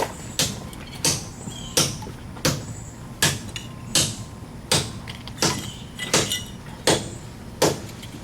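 Hammer blows in a steady rhythm, about one strike every 0.7 seconds, some followed by a lighter tap.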